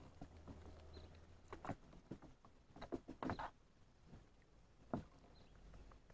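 Faint, scattered light taps and knocks: a cluster about three seconds in and a sharper single knock about five seconds in, over a low hum that stops after a second and a half.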